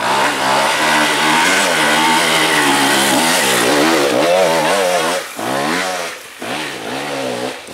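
Dirt bike engine revving hard, its pitch rising and falling again and again with the throttle as the bike climbs a dirt trail. It dips briefly twice near the end and then picks up again.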